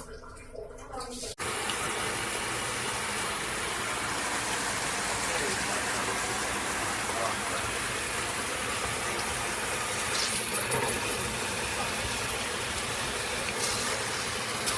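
Water spraying steadily from a handheld shower head, a continuous even rush that starts abruptly about a second and a half in.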